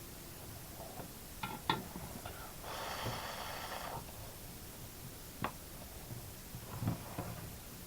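Light clicks and taps of small tools being handled on a soldering bench, several in a row, with one breathy exhale lasting about a second near the middle.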